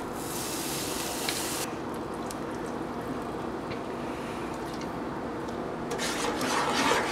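Fresh orange juice squeezed by hand into a hot pan of oil, garlic and sugar: a loud hiss of juice hitting the pan for about a second and a half, then a fainter steady hiss. Near the end a spatula starts stirring and scraping the pan.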